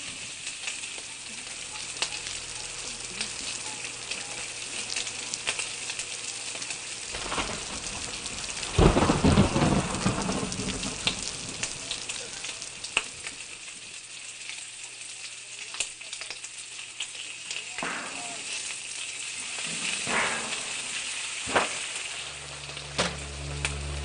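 Steady rain hissing, with single drops splashing close by. A loud clap of thunder rumbles about nine seconds in, and fainter rumbles follow near the end.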